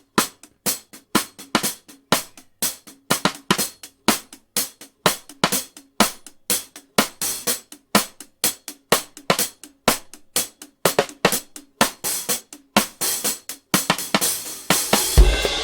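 Music: a busy drum beat of crisp snare, hi-hat and cymbal hits with almost no bass, until a fuller texture and deep bass notes come in near the end.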